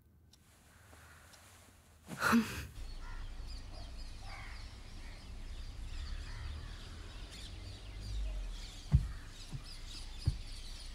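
Quiet room tone, then a brief loud rush about two seconds in, followed by park ambience: birds chirping over a low steady rumble. A few soft low thumps come near the end.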